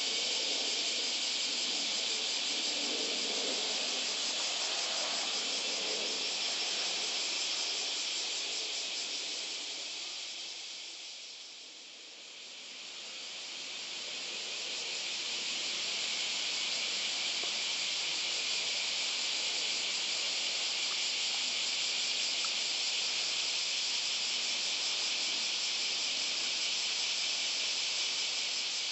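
Cicadas singing in chorus, a steady, dense, high buzz. It dips briefly about twelve seconds in, then comes back up.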